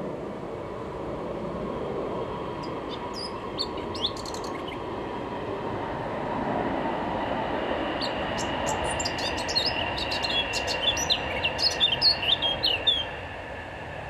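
Male Eurasian blackcap singing: a short phrase about three seconds in, then a longer warbling phrase that grows louder and stops abruptly near the end, over a steady low rumble.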